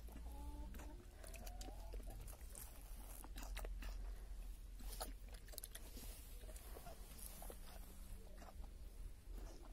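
A goat drinking from a bowl, its mouth making irregular wet clicks and lapping sounds in the liquid.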